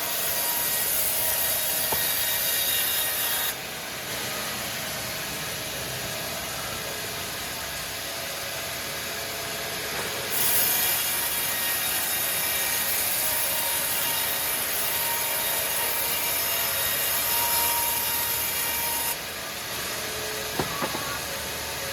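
Sawmill saw running steadily and cutting through timber. The loud hissing of the cut drops away about three seconds in, returns for a long stretch in the middle, and falls off again near the end. A few light knocks come just before the end.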